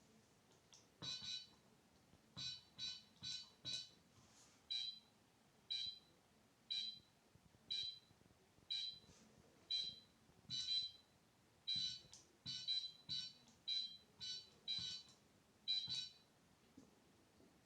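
Electronic beeper of an airsoft timer-bomb prop giving short, high beeps: first in quick runs, then about one a second for several seconds, then in quick runs again.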